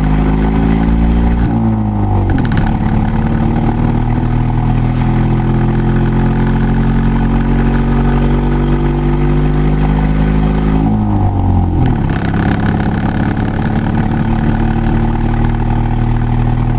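Vehicle engine pulling under acceleration, its pitch climbing slowly and then dropping sharply twice, about two seconds in and again about eleven seconds in, as the driver shifts up through the manual gearbox.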